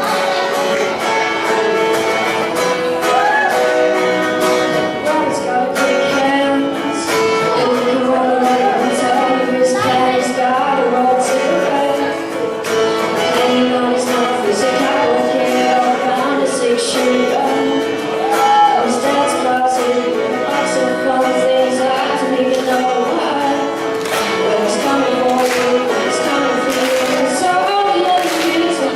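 A song performed with a singing voice and instrumental accompaniment, running steadily throughout.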